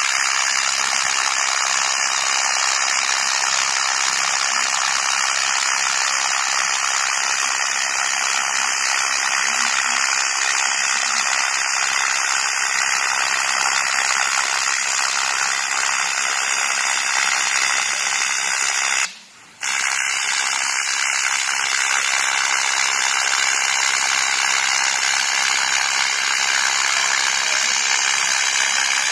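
TIG welding arc on aluminum, running on AC: a steady buzzing hiss that cuts out for about half a second about two-thirds of the way through, then strikes again.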